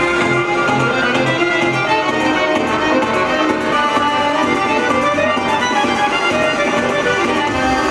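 Music with a prominent violin melody over a steady accompaniment.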